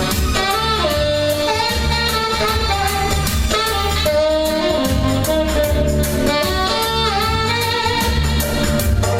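Instrumental jazz background music with a saxophone melody over bass and drums.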